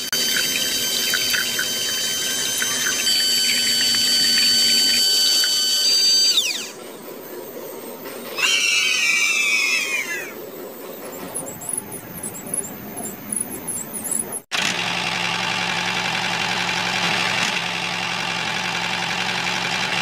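High-pitched whine of a small electric toy motor driving a miniature pump through rubber belts, stepping in pitch a few seconds in, with a run of squealing glides about halfway through.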